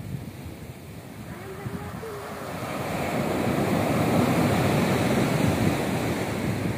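Sea waves breaking on a sandy beach: the rush of surf swells about two and a half seconds in and stays loud to near the end as a wave breaks and washes in.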